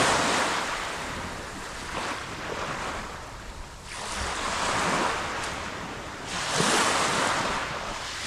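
Small sea waves breaking and washing up on the beach, the rushing surf rising and falling in a few surges.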